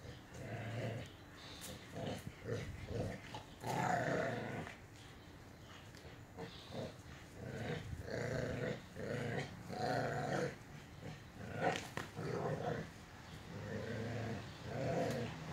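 Dogs play-growling in repeated bursts while tugging a toy between them, with a few sharp clicks.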